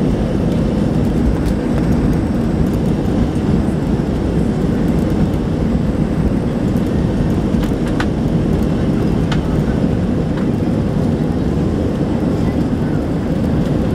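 Cabin noise of an Airbus A320-200 on its takeoff roll: the engines at takeoff thrust and the wheels on the runway make a steady, loud low rumble. A couple of faint clicks come about two-thirds of the way through.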